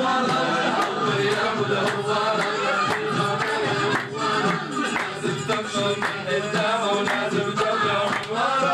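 People singing a song together with regular hand-clapping to the beat; the melody wavers and bends.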